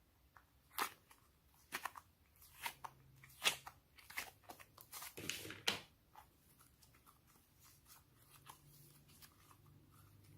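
Slime being mixed and squeezed by hand, giving a string of crisp crunches and crackles with a denser burst about five seconds in, then softer, fainter squishing.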